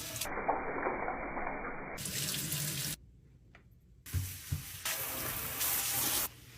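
Water running from a tap into a sink in two spells, about three seconds and then about two, with a break of about a second between; a couple of low knocks come as the second spell begins.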